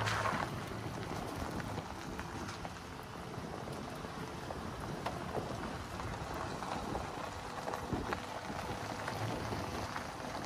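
Toyota Tacoma pickup's tyres rolling over a gravel road: a steady crackle of small stones under the tread, mixed with wind rushing over the microphone. There is a louder rush at the very start.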